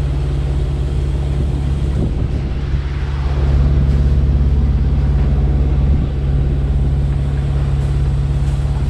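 Sailboat's inboard diesel engine running steadily while motoring, a low drone with a steady hiss above it, swelling a little in the middle.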